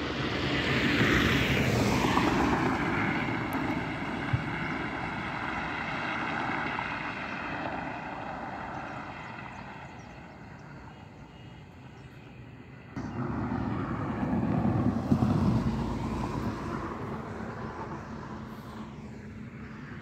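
Vehicles passing at speed on a highway. A loud pass-by in the first seconds, its pitch falling as it goes, leaves a whining tone that fades away. About thirteen seconds in, a second rush starts suddenly, peaks, and dies down.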